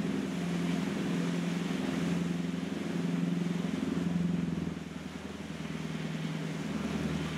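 Engines of a fjord cruise boat under way, a steady low hum with a rushing noise above it; the hum eases slightly about five seconds in.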